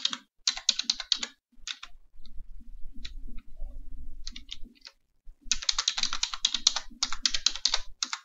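Computer keyboard typing in quick runs of keystrokes, with a lull of about three seconds in the middle where only a few scattered taps and a faint low hum are heard.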